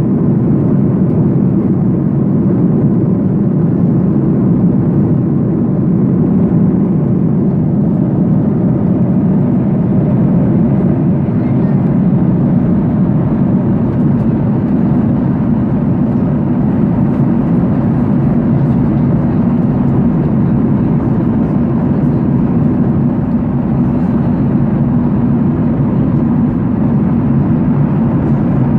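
Steady, low cabin noise of a passenger airliner, heard from inside the cabin, unchanging throughout.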